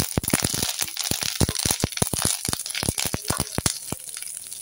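Fresh curry leaves crackling in hot sesame oil with fenugreek and fennel seeds, a rapid run of sharp pops that thins out near the end.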